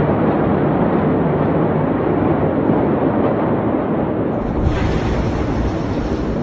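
Steady, loud rumbling roar of the Beirut port explosion recorded on a phone, with no single sharp bang. About four and a half seconds in, a higher hiss joins the rumble.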